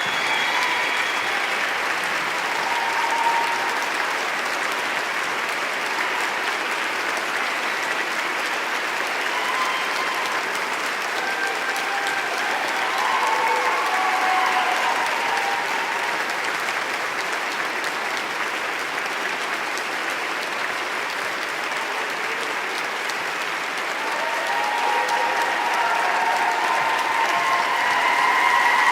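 Large crowd applauding steadily, with a few brief calls from the crowd rising above the clapping; the applause swells briefly in the middle and again near the end.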